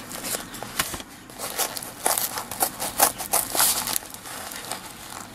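Paper mailing envelope rustling and crinkling in irregular crackles as it is cut at the corner and worked open by hand.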